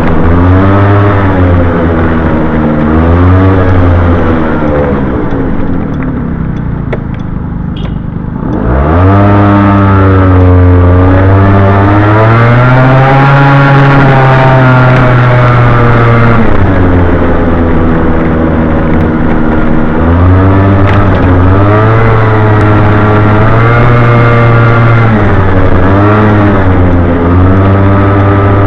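Honda Gyro Canopy scooter engine through a Moto Repair Galuze II eco muffler, heard from the rider's seat while riding. The engine pitch rises and falls as it accelerates and eases off. It drops low and quieter about six to eight seconds in, then pulls away again with a rising note about nine seconds in.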